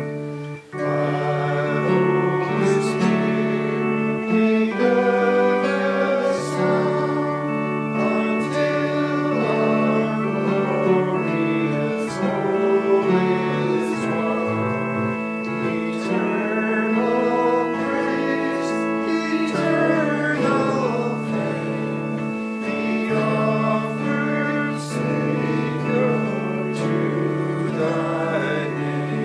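A hymn sung by voices over held keyboard chords that change every few seconds.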